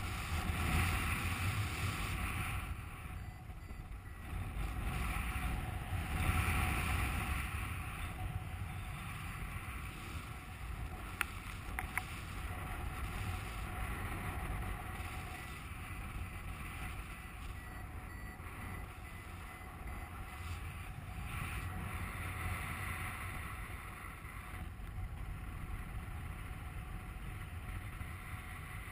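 Wind rushing over an action camera's microphone on a paraglider in flight: a steady low buffeting rumble that swells and eases in gusts.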